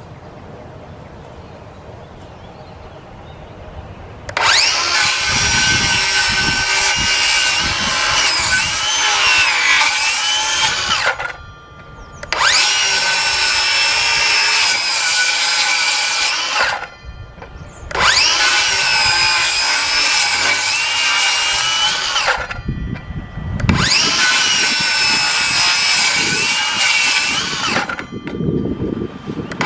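Craftsman V20 brushless cordless 7¼-inch circular saw making repeated cuts through three stacked 2x4s. After a few quiet seconds it runs four times, each run lasting about five seconds with a short pause between, and it starts a fifth cut near the end. The motor whine bends in pitch as the blade takes the wood.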